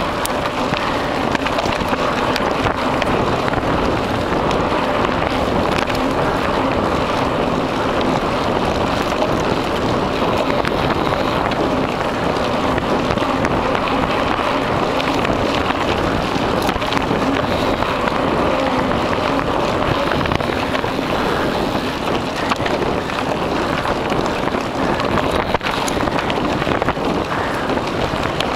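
Mountain bike rolling fast along a dirt forest track: a steady rush of wind on the microphone over the tyres' rolling noise, with small rattles and clicks from the bike.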